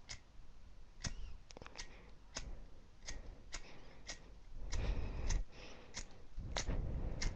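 Zippo-style replica lighter being struck over and over: sharp metallic clicks about every half second, a dozen in all, with a louder rasping stretch twice near the end, as it is worked to get a flame.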